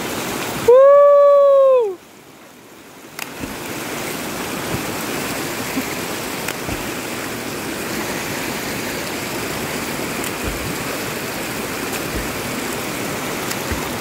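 Steady rushing of a stream's flowing water. About a second in, a loud whistle-like tone with overtones sounds for just over a second, its pitch sagging as it ends; then the sound briefly drops away before the water comes back.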